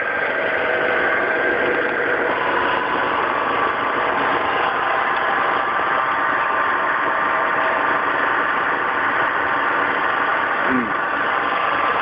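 Steady running noise like an idling engine, with faint steady tones in it.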